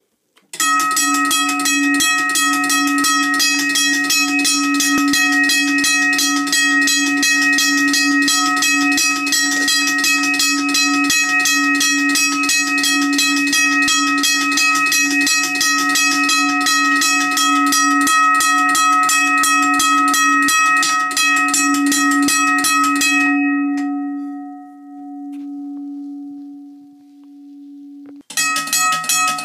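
US&S teardrop railroad crossing bell ringing with rapid, even clapper strikes over a steady ringing tone. About 23 seconds in the striking stops and the bell's tone fades away over about five seconds. Near the end the rapid ringing starts again abruptly.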